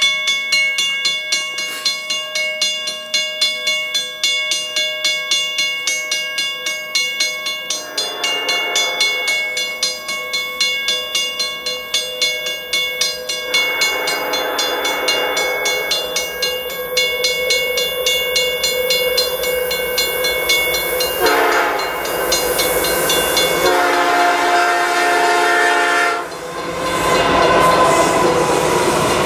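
Grade-crossing bell ringing steadily at about two strokes a second, while the horn of an approaching CN freight locomotive, SD70M-2 8803, sounds the crossing signal: long, long, short, long, growing louder. Near the end the locomotives reach the crossing with a rising engine rumble and wheel noise.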